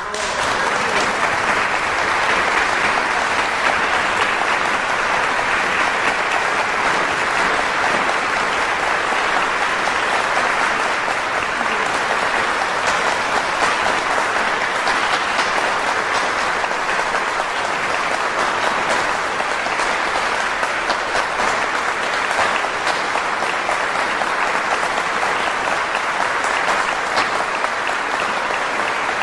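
Audience applauding, breaking out all at once and holding at a steady level.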